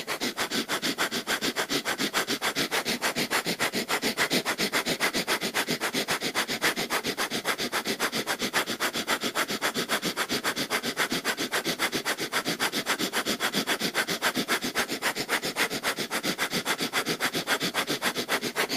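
Breath of fire (kundalini yoga): a man's rapid, even, forceful breathing through the nose, kept up without a break.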